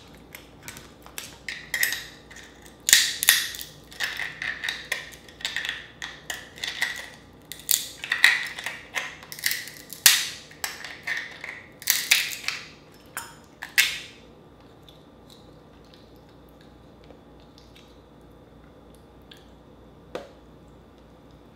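Dungeness crab shell crackling and crunching as it is broken apart by hand, with a metal crab pick clicking and scraping against the shell while the meat is dug out. A dense run of sharp crackles stops about two-thirds of the way through, and one lone click comes near the end.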